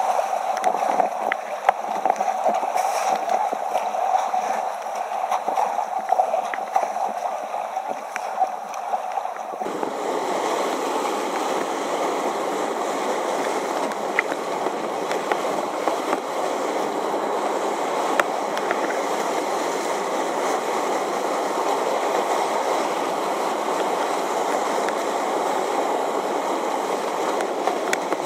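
Whitewater rapids rushing and splashing around a kayak. About ten seconds in the sound changes suddenly to a fuller, deeper rush.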